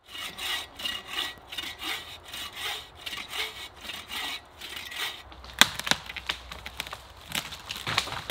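Hand saw cutting through a thin dead oak trunk in steady back-and-forth strokes, about two or three a second. About five seconds in the sawing stops and the wood cracks and splinters in a string of sharp snaps as the cut trunk gives way and the tree starts to fall.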